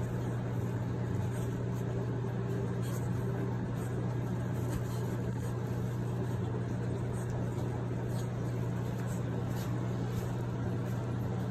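A steady low mechanical hum that holds level and pitch throughout.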